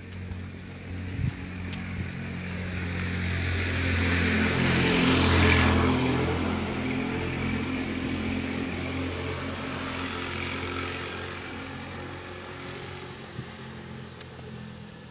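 A motor vehicle passes close by, its engine hum and road noise rising to a peak about five seconds in, then fading away slowly.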